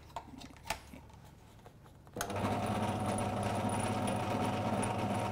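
Small benchtop drill press switched on about two seconds in, its electric motor and spindle running at a steady speed with a hum and a thin high whine.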